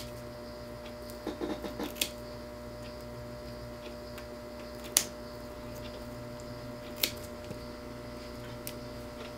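Scissors snipping deer-tail hair behind a bucktail jig's head: a few sharp snips, the clearest about two, five and seven seconds in, with softer ticks between. A steady hum runs underneath.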